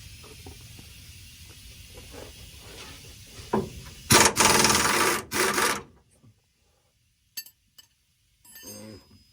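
Pneumatic impact wrench hammering in two bursts about four seconds in, a long one and a short one, breaking loose a bumper bolt. Before it come small knocks of tools against metal over a low hiss.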